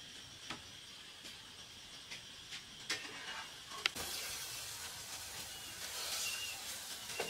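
Kitchen knife scraping and cutting a raw carrot held in the hand: a few crisp cuts, the loudest about four seconds in, over a faint steady hiss, with a few faint short high chirps.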